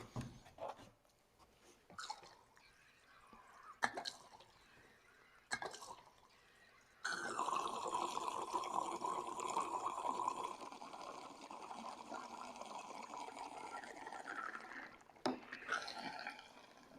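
Gasoline being poured from a can into a small inverter generator's fuel tank: a steady pouring sound that starts about seven seconds in and runs for about eight seconds. Before it come a few light knocks and clicks of handling the can and cap.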